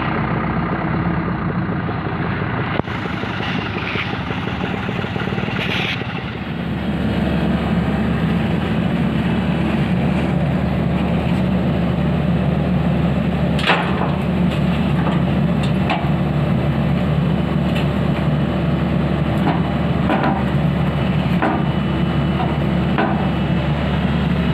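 A vehicle's engine running steadily while driving, getting louder about six or seven seconds in, with a few sharp knocks or rattles in the second half.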